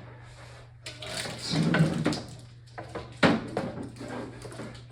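Handling noises of an electric fireplace insert being set into a wooden frame: irregular sliding and scraping, with one sharp knock about three seconds in.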